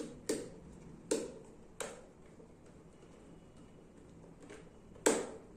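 Screwdriver turning the screws of a screw terminal block to clamp red and black wires: scattered short, sharp ticks and clicks, with two louder knocks near the end.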